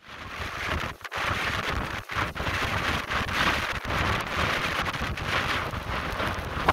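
Hurricane wind and driving rain buffeting the microphone, with heavy surf breaking against a seawall: a continuous rushing noise with a deep rumble underneath, broken by a few brief dips.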